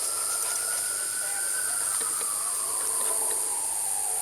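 Steady high-pitched outdoor hiss, with a faint wailing tone in the distance that slowly rises and falls in pitch.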